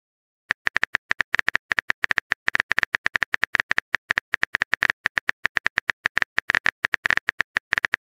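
Typing sound effect: quick, irregular clicks, several a second, starting about half a second in and running on without pause.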